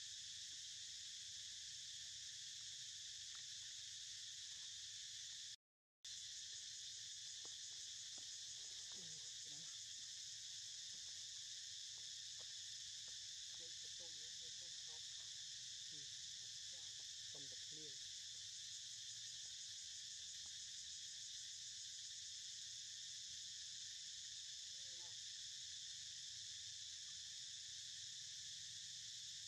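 Steady, high-pitched insect chorus droning without a break, with a few faint short calls in between. The sound drops out for about half a second around six seconds in.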